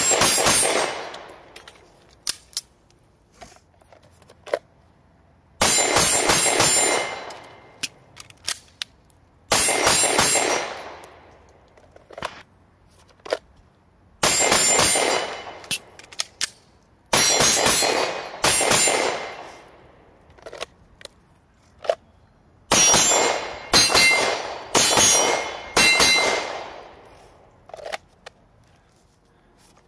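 CZ P-10 C semi-automatic pistol fired in quick strings of shots, each string ringing out and echoing off, with a pause of a few seconds between strings.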